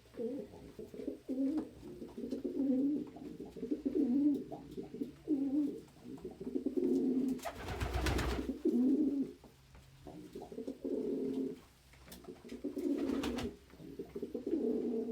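Pigeons cooing over and over in low, repeated phrases. A loud noisy burst breaks in about eight seconds in, and a shorter one comes near thirteen seconds.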